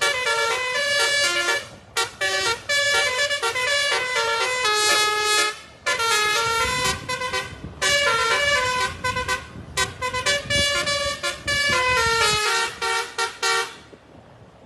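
Indonesian telolet bus horn, a multi-tone musical air horn, playing a fast tune of short, quickly changing notes in several phrases with brief breaks, stopping shortly before the end. A low rumble runs under the middle stretch.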